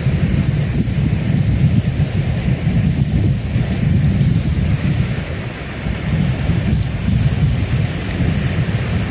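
Flash-flood water rushing steadily over a dirt creek bank, with a heavy low rumble under the hiss of the water.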